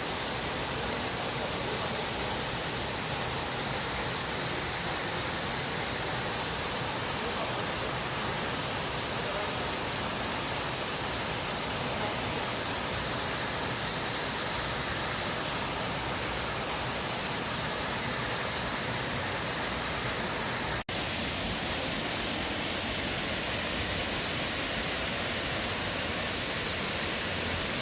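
Steady rush of water from a waterfall, an even hiss spread across low and high pitches. It breaks off for an instant about two-thirds of the way through and resumes slightly thinner.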